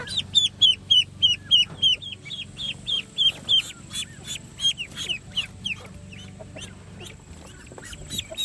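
Pekin duckling peeping as it is carried by hand: a rapid run of high, falling peeps, about four a second, that turn fainter and sparser about halfway through.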